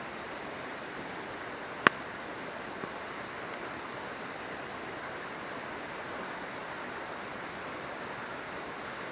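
Steady rushing of a river, with one sharp pop from the burning firewood of a campfire about two seconds in and a faint second pop a second later.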